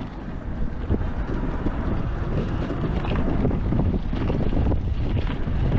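Wind buffeting the microphone of a camera riding on an electric ATV, a loud, gusty low rumble, with scattered short knocks from the ride over bumpy ground.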